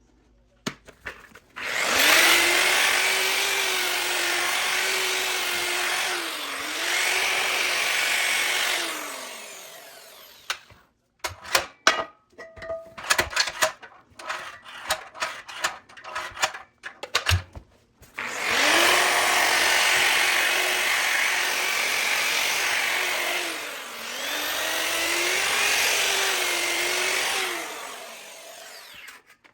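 Bauer variable-speed polisher with a sanding pad, sanding a cast iron skillet in two runs of about eight seconds each; the motor's pitch dips briefly partway through each run. Between the runs come a few seconds of clicks and knocks.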